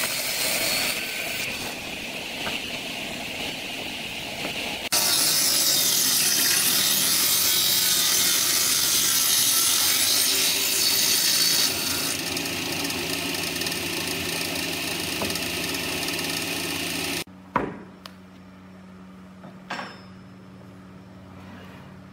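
Table saw ripping thick hardwood boards: a loud, steady cutting noise from the blade in the wood. After about seventeen seconds the cutting noise stops, leaving a low hum, and two short knocks follow.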